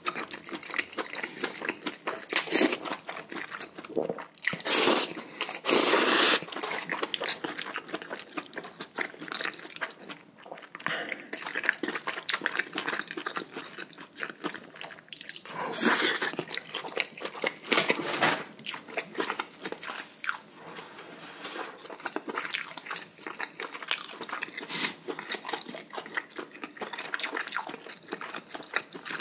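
Close-miked eating sounds: noodles slurped in several loud bursts, mostly in the first few seconds and again around the middle, between steady chewing with crunching of spicy chicken and its knee cartilage.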